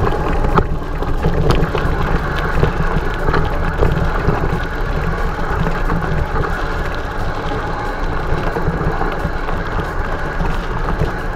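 Mountain bike rolling over a dirt and gravel track: steady tyre rumble and rattle with wind buffeting the camera microphone, and a few sharp clicks from the bike.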